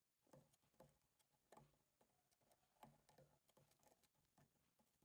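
Near silence, with faint, scattered light taps and ticks, about eight in all.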